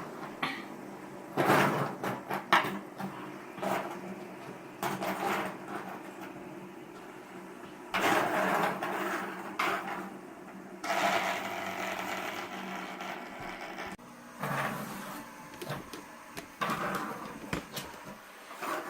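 Fidget spinners whirring with a steady hum, with repeated clicks and clatter as they are handled and knocked together on a hard surface.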